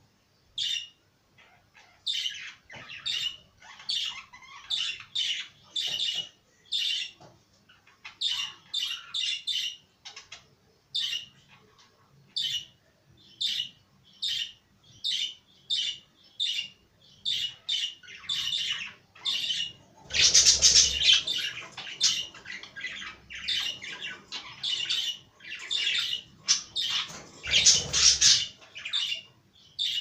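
A flock of pet budgerigars chirping and chattering in their cage: a steady run of short, high calls, about two a second. Louder, harsher squawking comes about two-thirds of the way through and again near the end.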